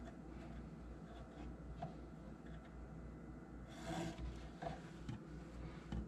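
Faint rustling and rubbing of yarn strands and twine being knotted onto two taut lines by hand to make baggywrinkle, with a few small ticks and a louder brief rub about four seconds in as the tied strands are pushed up the lines. A low steady hum runs underneath.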